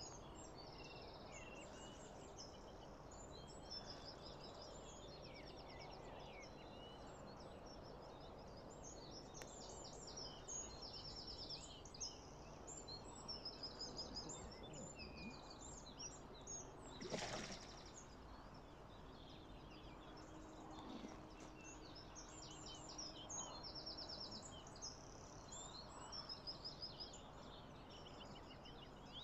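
Several songbirds singing faintly, with many short repeated trills and warbling phrases over a low steady background hiss. A brief rush of noise comes about halfway through.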